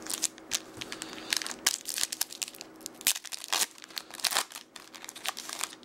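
Trading-card pack wrapper being handled, crinkling with a quick, irregular run of sharp crackles.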